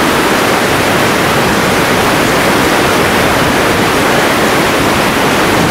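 Flash flood of muddy water and debris rushing down a wide creek channel, a loud, steady, unbroken rush of churning water.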